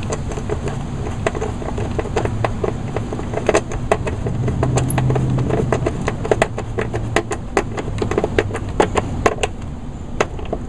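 Socket ratchet clicking in irregular runs while tightening a nut on a lawnmower's belt cover, over a steady low hum.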